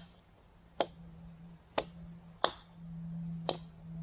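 Small axe chopping side branches off a felled dead tree: five sharp chops, roughly a second apart.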